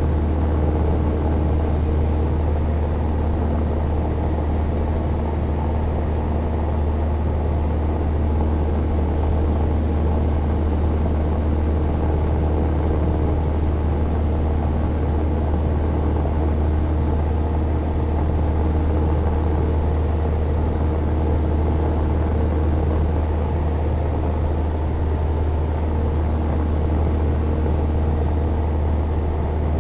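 Cessna 172N's four-cylinder Lycoming engine and two-blade propeller in level flight, a steady low drone heard from inside the cabin.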